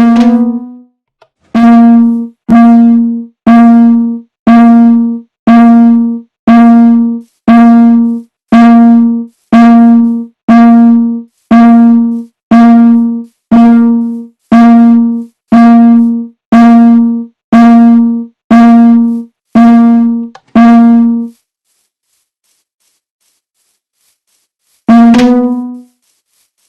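Fire alarm horn sounding in a steady pulsing pattern, a little more than one loud blast a second, about twenty blasts in a row, then stopping. After a pause of a few seconds it gives one more blast.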